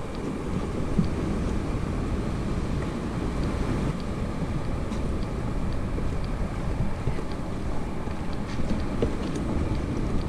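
Steady wind buffeting the camera's microphone, a low rumbling rush with no let-up.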